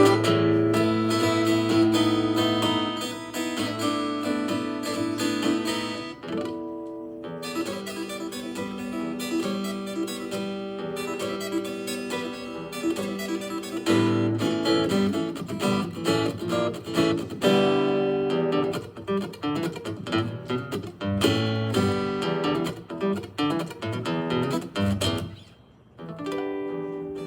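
Solo acoustic guitar played fingerstyle: a melody over chords with strummed strokes. The playing breaks off briefly near the end, then resumes.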